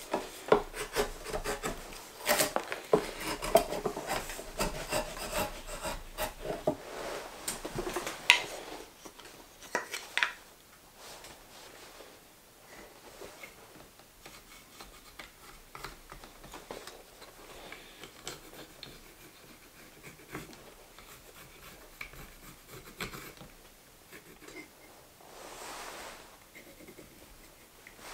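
Carving gouge cutting into green maple, scooping shavings from a spoon bowl in quick scraping strokes for about the first ten seconds. After that come faint, light scratches of a pencil marking lines on the wood.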